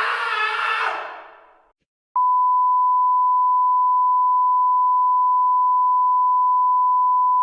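A noisy sound with a few held tones fades away over the first couple of seconds. After a short silence, a single steady beep tone starts and holds unbroken: a broadcast test tone of the kind heard when a TV feed goes off the air.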